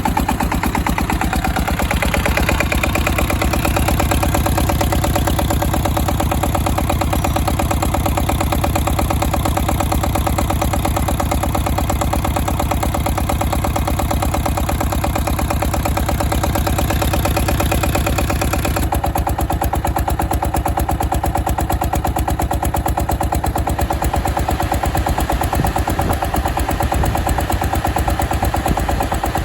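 SD1110 single-cylinder diesel engine driving a homemade generator, running steadily with an even, rapid firing beat. About two-thirds of the way through the sound turns abruptly duller, losing its hiss.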